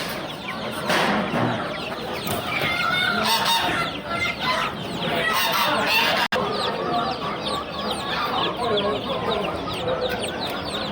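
Many caged chickens clucking and calling together, with roosters crowing among them. The sound cuts out for an instant about six seconds in.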